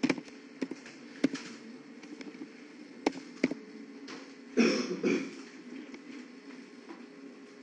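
Computer keyboard and mouse clicks, a handful of separate sharp taps, over a steady low hum. About two-thirds of the way in there is a short, louder noise lasting about half a second.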